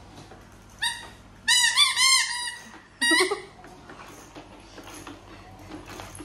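Horn on a toddler's toy ride-on cycle sounding in high, squeaky, warbling notes: one short note about a second in, then a longer warbling run, then one more note about three seconds in.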